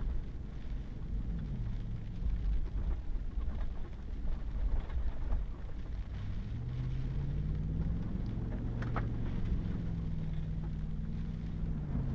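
Pickup truck engine running with tyre and road rumble on a wet, muddy gravel road, heard from inside the cab. The engine pitch drops about a second in, then climbs from about six seconds as the truck speeds up, and scattered ticks run through.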